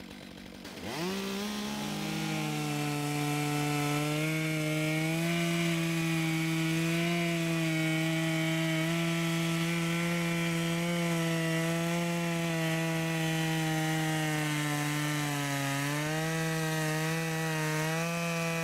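Chainsaw in a PortaMill chainsaw mill ripping a log lengthwise. The engine revs up about a second in, then runs steadily at high speed under cutting load, its pitch sagging briefly now and then as the chain bites.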